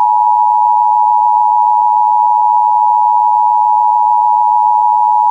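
Emergency Alert System attention signal: two tones sounding together in one loud, unbroken, steady alarm tone, the signal that announces an emergency broadcast message.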